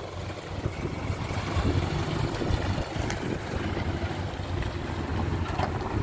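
Engine of a small flatbed crane truck running with a steady low rumble as the truck pulls slowly away over gravel.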